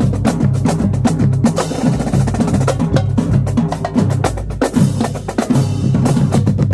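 Marching drumline playing a fast cadence: rapid snare strokes and rolls over pitched bass drums, with a hissy wash in the highs twice.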